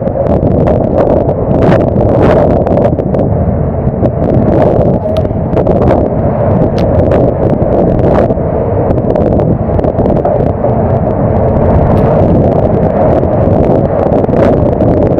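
Storm wind buffeting the microphone over the steady rush and rumble of heavy seas on a fishing boat's open deck, with many short ticks and knocks.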